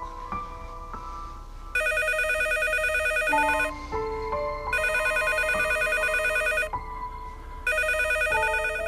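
A desk telephone ringing: three rings of about two seconds each, about a second apart, starting about two seconds in. Soft piano background music plays underneath.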